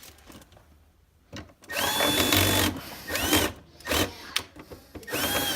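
Milwaukee 12-volt cordless drill with a 1/4-inch nut driver running screws back in, in short bursts. The motor whine rises, holds and falls each time: one longer run about a second and a half in, then three brief ones.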